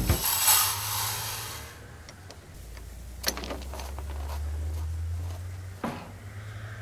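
A high hiss for the first couple of seconds, then a low steady hum with two sharp knocks, one about three seconds in and one near the end.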